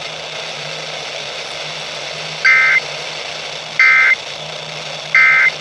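Emergency Alert System end-of-message code received over radio: three short, identical two-tone digital data bursts (the EAS AFSK signal), evenly spaced about a second and a half apart, marking the end of the alert. Between them a steady radio hiss with a low hum.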